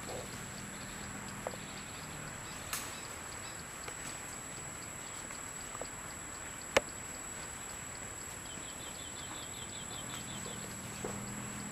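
Forest ambience: a steady, thin high-pitched whine under a few sharp clicks, the loudest about seven seconds in, and a quick run of about a dozen short chirps about nine seconds in.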